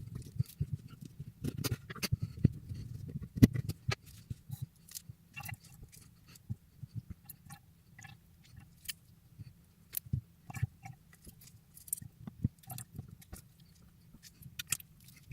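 Lemon halves being squeezed by hand over a cup: an irregular run of small clicks and knocks, busier in the first few seconds and sparser afterwards.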